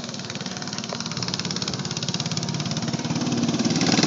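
Several go-kart engines running at speed, a rapid buzzing pulse that gets steadily louder as the karts come closer.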